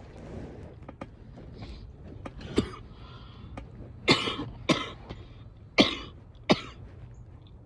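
A woman's wet coughs: about five separate coughs, one a third of the way in, then two pairs close together in the second half.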